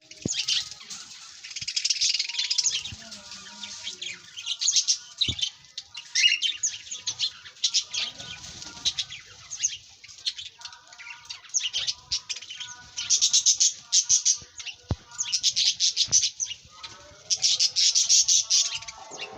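Many small birds chirping and twittering together in repeated dense bursts, calls overlapping, with a few sharp clicks among them.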